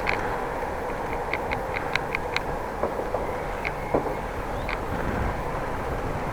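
Riding a bicycle: steady wind and rolling noise on the camera microphone, with a string of short high clicks, most of them in the first half.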